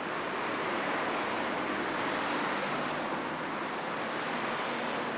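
A steady, even rushing noise with no distinct events or pitched tones.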